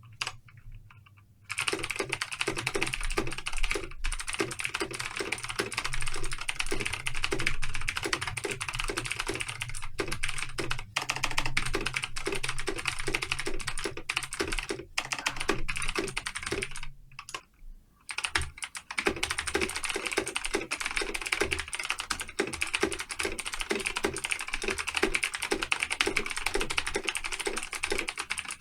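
Rapid typing on a computer keyboard: a dense, fast clatter of keystrokes during a typing speed test. It starts about a second and a half in, stops briefly a little past halfway, then picks up again.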